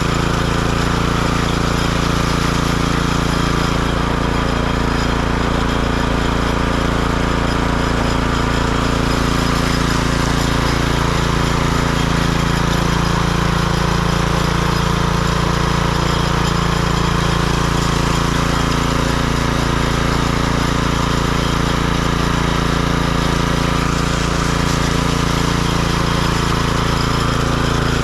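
Petrol-engine concrete power trowel running steadily on a slab being finished.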